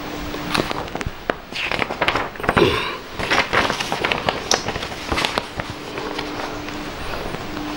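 Irregular rustling with sharp clicks and knocks from a sheet of paper and a pen being handled close by, and a brief low steady hum that comes in twice near the end.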